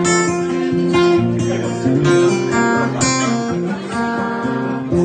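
Live band playing the instrumental intro of a country song, led by strummed acoustic guitar with sustained chords changing every second or so.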